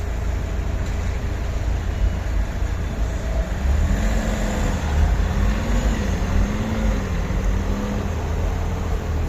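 A motor vehicle's engine passing, its pitch rising and falling from about three and a half seconds in to about eight seconds in, over a steady low rumble.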